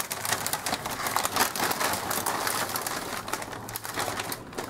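A hand rummaging in a plastic bag of Sabritones puffed wheat snacks: the bag crinkles and the dry, crunchy pieces rustle against each other in quick, irregular crackles.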